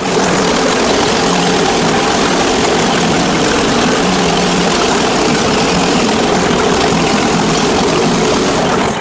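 Gas engine of a Woodland Mills portable band sawmill running steadily at a constant speed.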